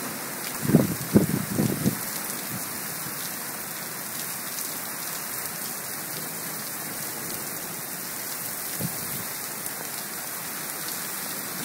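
Torrential rain falling in a steady, dense hiss during a downpour of about three and a half inches in under an hour. A few short low bursts stand out about one to two seconds in, and once more later.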